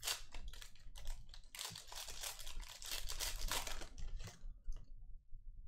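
Trading-card pack wrapper being torn open and crinkled: a dense run of crackling and tearing, heaviest in the middle, dying away about a second before the end.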